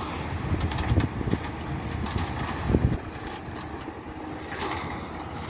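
Steady low outdoor rumble, with a few soft knocks about a second in and again near the three-second mark, typical of a phone being handled in the open.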